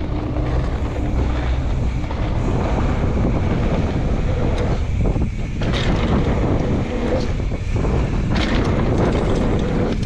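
Loud, steady wind rush buffeting the microphone of a mountain biker's camera at riding speed, with a low rumble under it and a few short hissing swells.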